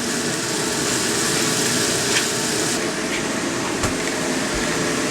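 Ground chicken frying in oil in a pan, giving a steady sizzling hiss, with one short knock near four seconds in.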